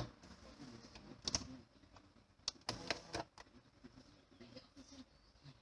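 Scattered clicks and knocks of hard parts being handled, with a quick cluster of them about three seconds in.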